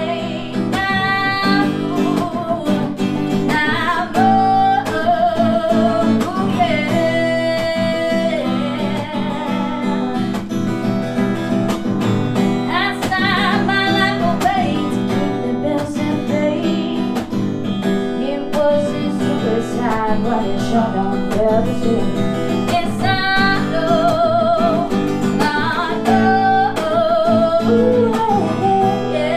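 A singer sings a song over a strummed guitar, with a wavering vibrato on the held notes.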